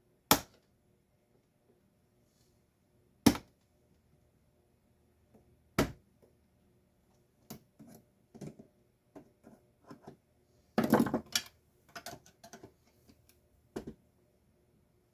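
Sharp clicks and knocks of hand tools and parts against a Stanley garage door opener being taken apart: three loud single clicks a few seconds apart, then lighter taps and a brief clattering rattle.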